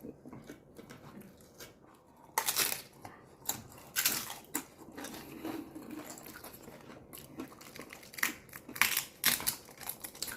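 A crisp fried-tortilla tostada crunching and cracking, close up: a loud crunch a couple of seconds in, another about four seconds in, and a quick run of three near the end, with softer crackling and chewing between.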